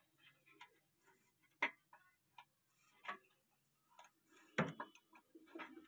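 A few faint, irregular clicks and knocks against a quiet background, the loudest and deepest about two-thirds of the way through.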